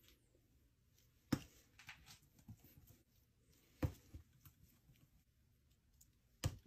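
Palette knife scraping and spreading thick paint on a palette, faint, broken by three sharp taps about two and a half seconds apart.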